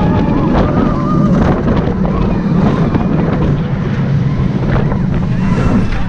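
Wind buffeting the microphone over the steady rumble of a Bolliger & Mabillard steel hyper coaster train running along its track at speed.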